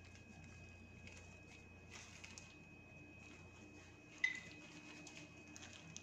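Faint light pattering and small clicks of chopped almonds and pistachios being sprinkled onto kheer in a glass bowl, with one sharper clink that rings briefly about four seconds in.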